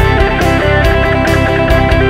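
Isan rock instrumental: a phin (Isan Thai lute) plucking a fast lai melody over bass and a steady drum beat.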